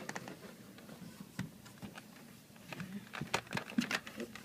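Scattered light clicks and taps of things being handled, a few sharp ones spaced irregularly, busier toward the end.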